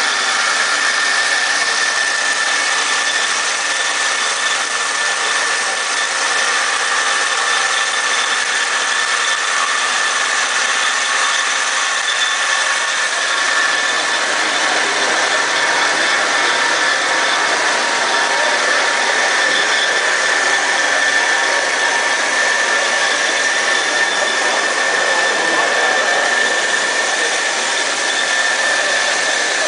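PETRA DC300A dual-column band saw running steadily as it cuts through a bundle of three thick-walled seamless tubes: a continuous machine noise with a steady high whine.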